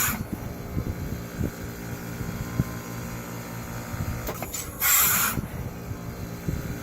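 Heat pump running and coughing: a steady hum with irregular low knocks, broken by short bursts of hiss, one at the very start and another about five seconds in.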